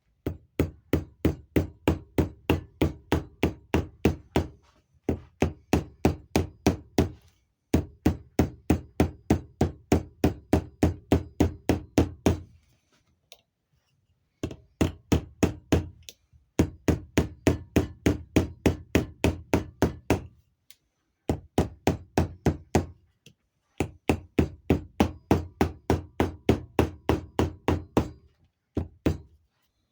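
Small hammer tapping rapidly on a vacuum advance unit being reassembled after a diaphragm repair, about four or five blows a second, in runs of a few seconds with short pauses between.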